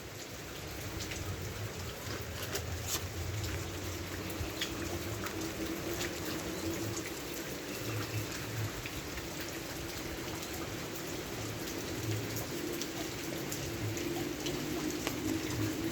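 Rain falling steadily: an even hiss with many separate drops ticking and splashing on a hard surface, over a low steady drone.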